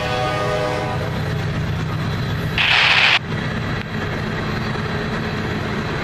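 Loaded ethanol tank cars of a freight train rolling past, a steady low rumble of wheels on rail. A distant horn fades out in the first second, and a brief loud hiss about two and a half seconds in cuts off suddenly.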